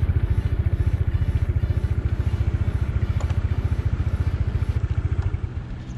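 A vehicle engine running steadily close by, a fast, even low pulse that fades away about five seconds in.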